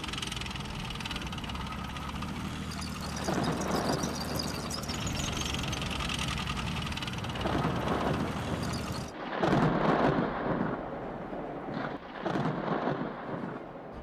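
Loud snoring, one long snore every three to four seconds, over a low thunder rumble. About nine seconds in the rumble drops away and the snores come louder and sharper.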